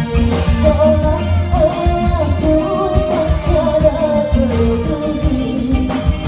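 Live pop band playing: a male singer sings the melody over keyboard, electric guitars and a drum kit keeping a steady beat.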